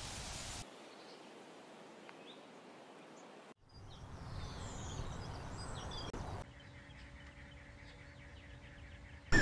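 Quiet outdoor ambience that changes abruptly several times, with a few faint bird chirps in the middle and a faint steady hum near the end; no clear animal call.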